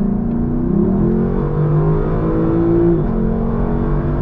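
Lexus LC500's naturally aspirated 5.0-litre V8 pulling under acceleration, its pitch climbing, dropping at an upshift about three seconds in, then climbing again.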